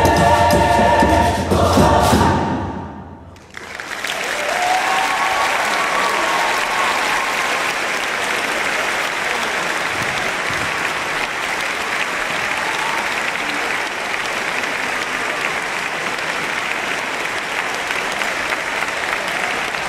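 A choir's final chord cuts off about two seconds in and rings away in the hall. After a moment of silence, an audience breaks into steady applause that runs on.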